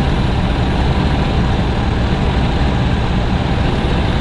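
A 1988 Chevrolet Suburban's engine idling steadily.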